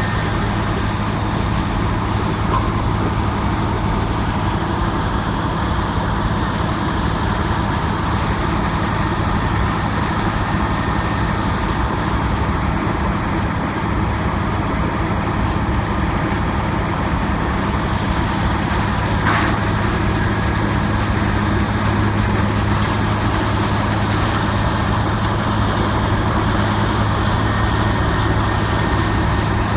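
Morbark 3200 horizontal track grinder running, its large diesel engine droning steadily at a constant pitch while it grinds brush. A single short knock comes about two-thirds of the way through.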